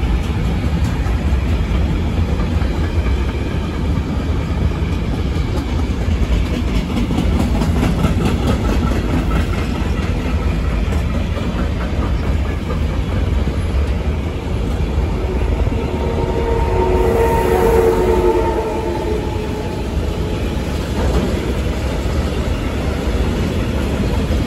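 Freight wagons (container flats, then tank wagons) rolling past close by at speed, a steady loud rumble of wheels on rail with some clickety-clack. About two-thirds of the way through, a brief steady tone rises over the rumble for a few seconds.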